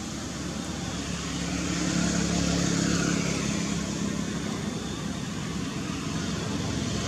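A motor vehicle's engine running, swelling up about two seconds in and then holding steady.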